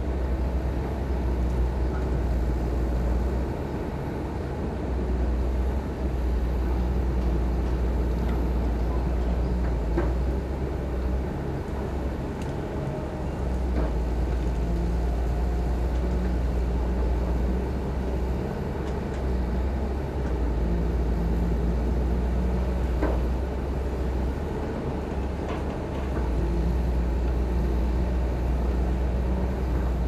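Caterpillar 320B excavator's diesel engine running under load, its low rumble swelling and easing every few seconds as the boom and bucket work. A few faint clanks come through along the way.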